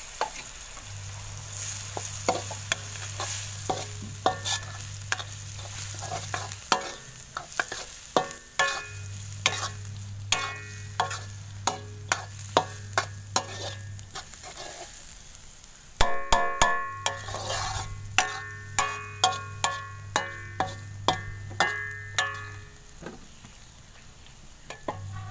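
Metal spatula scraping and clanking against a metal kadai as masala-coated mutton liver is stir-fried in oil with browned onions, over a steady sizzle. The clanks ring and come in quick runs, about two a second.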